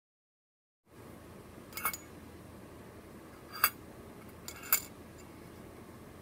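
A loose ceramic part inside the clear glass bulb of a Panasonic 300 W metal halide lamp clinking against the glass as the lamp is tilted by hand: three light clinks, the last one doubled.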